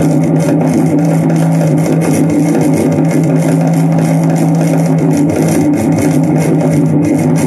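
Live electronic music: a loud, steady low drone with a crackling, flickering hiss on top. The drone wavers near the end.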